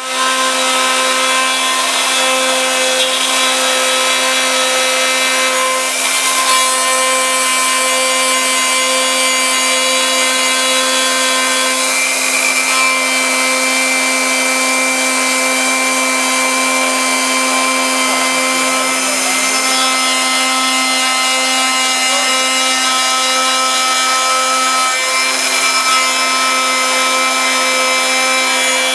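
CNC milling machine's end mill cutting into an aluminium block: a steady, many-toned whine from the spindle with a harsh cutting noise over it.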